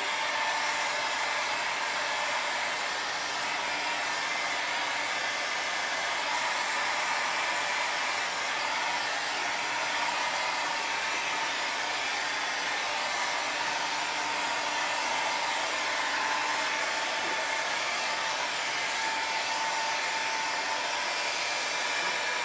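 Small handheld hair dryer running steadily, a constant rush of blown air with a faint steady whine, drying a fresh coat of photo emulsion on a silkscreen.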